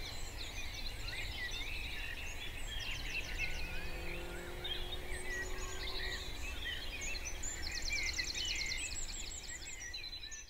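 Several songbirds singing outdoors, many short chirps and whistles with a rapid trill about three seconds in and another near the end, over a steady low background rumble.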